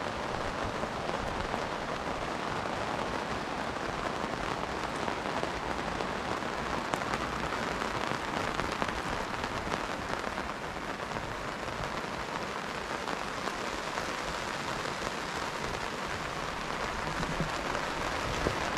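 Steady rain falling: an even hiss of rain, dense with small drop impacts.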